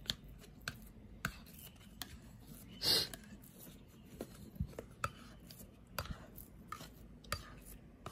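Bowl scraper working sticky sourdough out of a glass bowl: scattered light taps and clicks against the glass, with one short, louder scrape about three seconds in.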